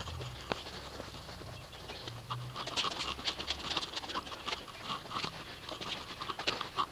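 Wet microfiber wash mitt scrubbing over a soapy car panel: irregular swishing strokes that come thicker and faster from about two and a half seconds in.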